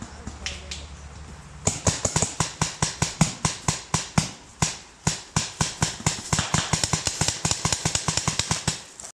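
A rapid, irregular string of sharp clicks or pops, about five a second, starting about two seconds in and running on until just before the end.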